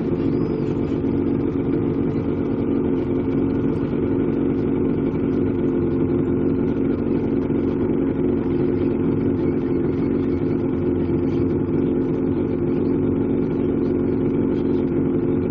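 Motorboat engine idling steadily, an even low hum with no change in speed.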